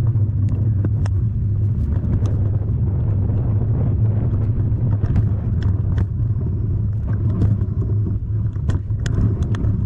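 A steady low rumble with scattered light clicks and rattles.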